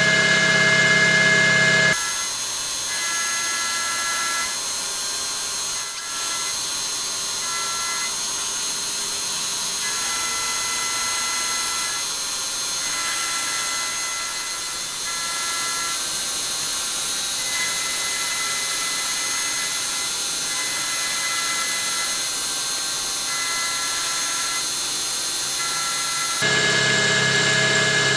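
Optimum MB4 milling machine running, with a 6 mm end mill cutting a slot in metal under the table's power feed. A steady mechanical whine and cutting hiss, with high ringing tones that come and go every second or two. The sound changes abruptly about two seconds in and again near the end.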